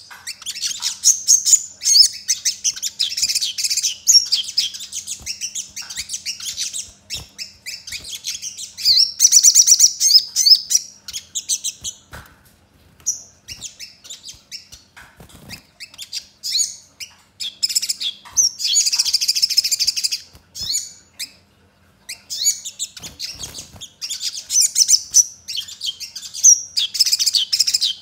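Male olive-backed sunbird singing hard: loud, rapid, high-pitched twittering and trilling phrases of several seconds each, broken by short pauses. The song is worked with house-sparrow-like chirps.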